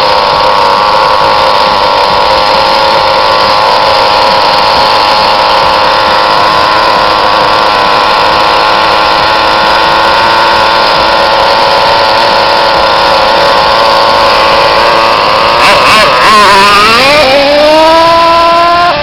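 Twin-engine RC car's small engines running at a steady high-pitched whine for most of the time, then the pitch wavers and dips before climbing steadily as they rev up near the end.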